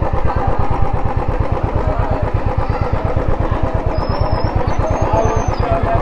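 Motorcycle engine running at low revs, its exhaust beating in a steady, even rhythm.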